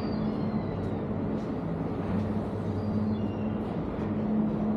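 City street traffic: a vehicle engine running with a steady low hum, with faint thin high squeals at times.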